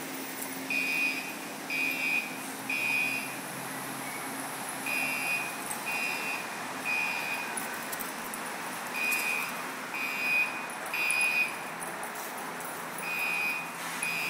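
Electronic warning alarm beeping in sets of three high beeps, about one a second, with a short pause between sets, over steady background noise.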